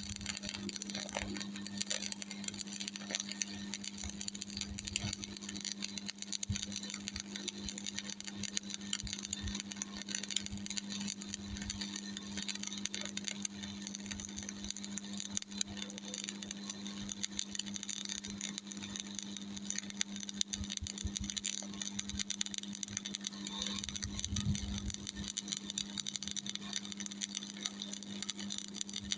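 Shielded metal arc (stick) welding with an E6013 3.2 mm electrode: a steady crackle and sputter from the arc, over a constant low hum from the Miller Thunderbolt 225 AC welder.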